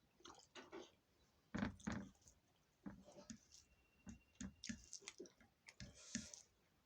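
Faint, irregular knocks, clicks and short scrapes of kitchen utensils being handled while cooking, the loudest about a second and a half in.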